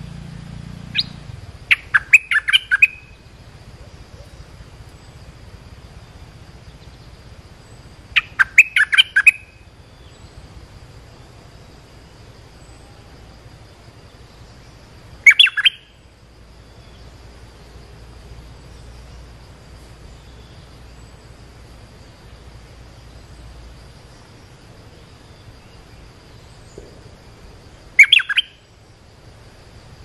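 Bulbul (merbah) decoy calls: four bursts of short, quick chirping notes separated by long pauses. The first two bursts are runs of several notes and the last two are brief.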